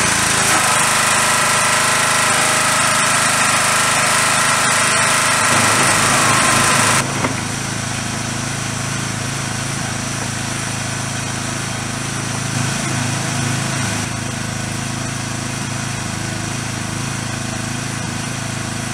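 Pressure washer running steadily, with the hiss of its spray over it for about the first seven seconds; the hiss cuts off suddenly and the machine keeps running.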